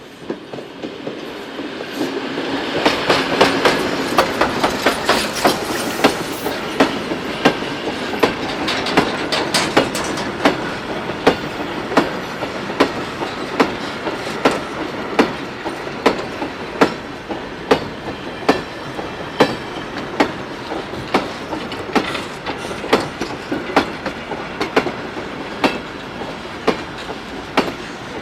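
Footplate sound of a WWII Kriegslok steam locomotive under way: a running noise that swells over the first few seconds, with a sharp click repeating at a steady rhythm a little more than once a second.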